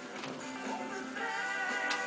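Music playing, with a wavering, vibrato melody line coming in about a second in.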